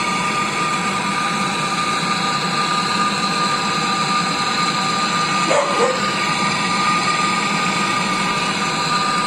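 Pressurised nitrogen rushing through a refrigerator's sealed tubing and capillary tube during a 141B flush, a loud steady hiss with whistling tones. A brief squeal about halfway through.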